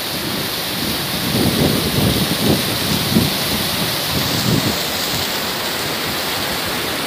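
Hot spring water rushing and splashing in a steady, loud hiss, with irregular low rumbles on the microphone between about one and a half and five seconds in.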